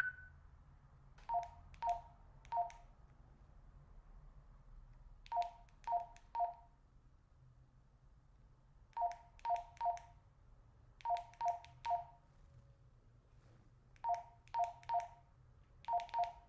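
Baofeng UV-5R handheld radio's keypad beeps as new frequencies are typed in: short beeps of two tones sounding together, in quick runs of three key presses every few seconds. A single higher beep comes right at the start.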